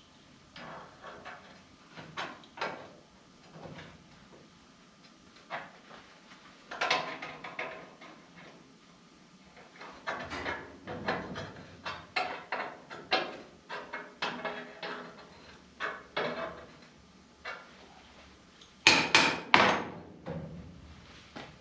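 Irregular metallic knocks and clanks, a steel bracket being fitted and tapped onto the steel rail of a CNC plasma table, with a quick run of knocks in the middle and two loudest clanks near the end.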